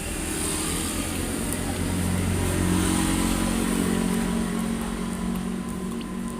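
A motor vehicle's engine running past, swelling to its loudest about halfway through and then fading.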